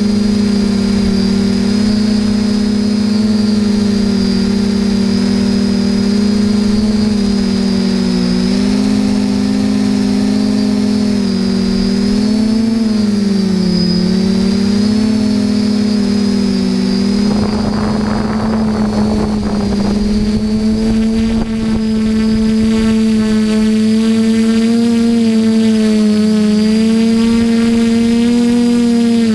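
Multirotor drone's electric motors and propellers whining steadily, as heard from the camera it carries, the pitch dipping and rising as it manoeuvres. A rush of wind on the microphone comes in for a couple of seconds past the middle.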